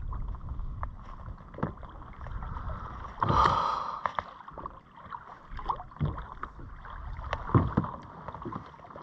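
Water lapping and gurgling against a kayak hull, with scattered light clicks and knocks from handling the fishing rod and reel. A short, louder rush of noise comes a little over three seconds in, and a sharper knock near the end.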